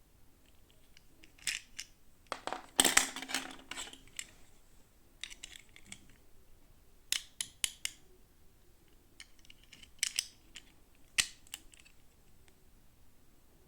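Small plastic toy pieces and packaging being handled for unboxing: scattered sharp clicks and taps, with a louder rustling stretch about two and a half seconds in.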